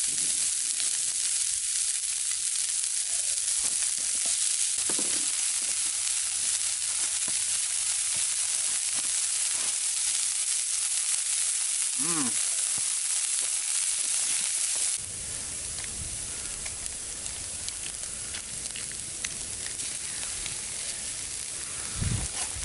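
Diced onion and green pepper sizzling steadily in a cast-iron skillet over a campfire. The sizzle turns quieter about two-thirds of the way through, and a couple of low thuds come near the end as a sausage patty goes into the pan.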